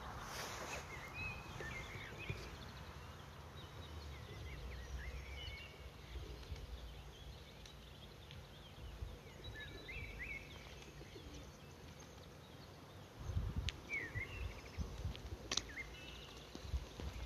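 Small birds chirping and calling in short scattered phrases over a low rumble on the microphone, which turns gusty in the last few seconds. A single sharp click sounds near the end.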